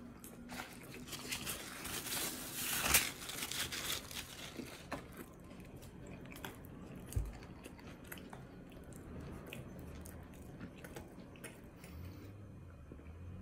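Close-up chewing and biting of a mouthful of cheesesteak sandwich, with many small crunches and mouth clicks, busiest a couple of seconds in. Near the end, drinking from a plastic water bottle.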